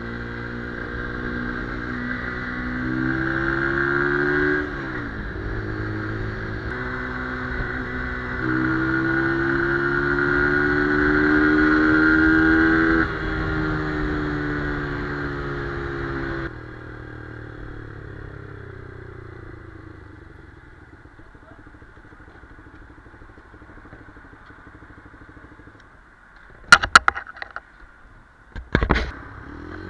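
Brixton BX 125 R's single-cylinder four-stroke engine accelerating under load. Its pitch climbs in each gear and drops at the upshifts, for example about four and thirteen seconds in. It then turns quieter, with a slowly falling pitch as the bike slows off the throttle. Near the end come two loud clusters of knocks.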